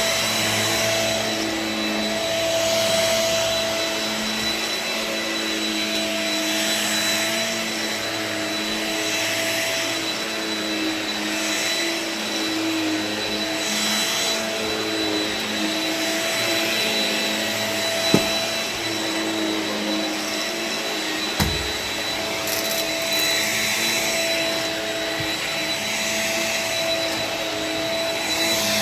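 Shark Rocket Ultra-Light corded stick vacuum running while vacuuming, a steady motor hum with a suction hiss that rises and falls every couple of seconds. Two sharp knocks in the second half.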